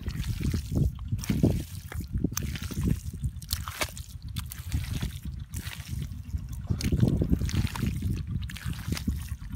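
Wet mud squelching and sloshing as hands dig and grope through it, uneven and irregular with scattered sharp wet smacks.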